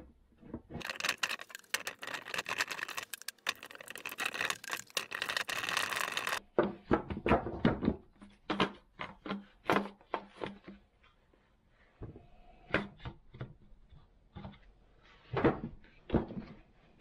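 Stihl MS-290 chainsaw engine being wiggled and pried by hand out of its housing, with knocking and rattling of metal against plastic. About a second in comes a dense run of rattling and scraping lasting several seconds, then a string of separate knocks that thins out toward the end.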